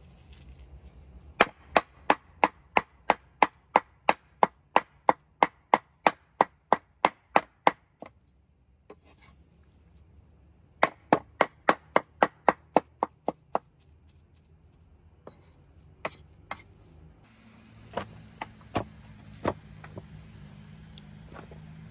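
Heavy cleaver chopping meat into mince on a wooden board: two fast runs of sharp knocks, about three a second, with a short pause between them, then a few slower, scattered knocks near the end.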